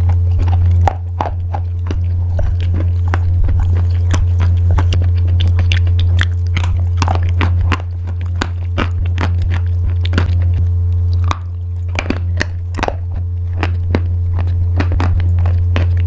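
Close-up biting and chewing of crunchy pasta: a dense run of sharp, crackling crunches, over a loud steady low hum.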